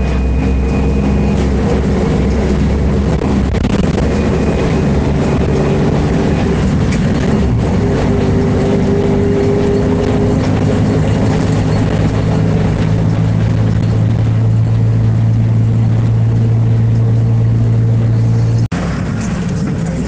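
Mercedes-Benz Ayco Zafiro city bus's diesel engine running steadily at low revs with a deep, even drone. Near the end the sound briefly cuts out, then carries on a little quieter.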